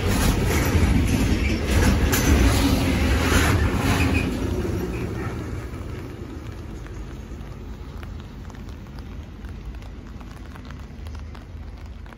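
Container freight train's wagons rolling past with a loud low rumble and wheel clatter, fading after about four seconds as the last wagon moves away.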